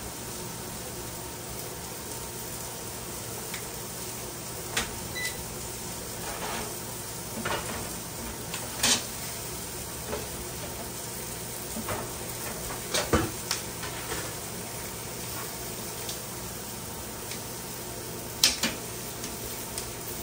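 Chicken sizzling steadily on a stovetop grill pan with a low hum underneath, and scattered sharp clinks and knocks of kitchenware and utensils.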